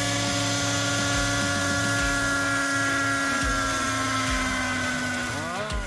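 Scale RC CH-47 Chinook model helicopter's engine and tandem rotors running with a steady whine, the pitch sinking slowly in the second half. Near the end there is a short swooping tone that rises and falls.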